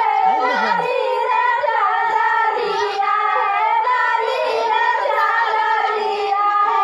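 A group of women and girls singing a Karma folk song together, many voices overlapping in a steady chant.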